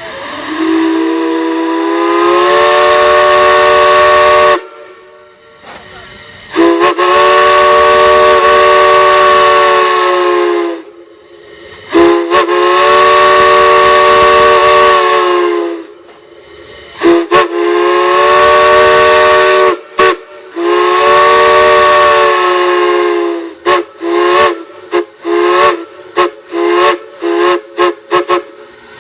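A large whistle blown on pressure at a whistle blow. It sounds five long blasts of about three to four seconds each, the first sliding up in pitch as it comes on, then a quick run of short toots near the end.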